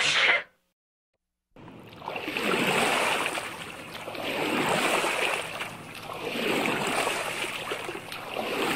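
Rushing, surf-like noise that comes in about a second and a half in and swells and fades roughly every two seconds.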